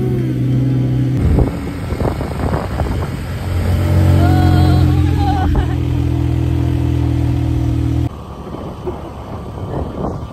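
Small motorcycle engine running while under way, with wind rushing over the phone's microphone. The level drops noticeably near the end.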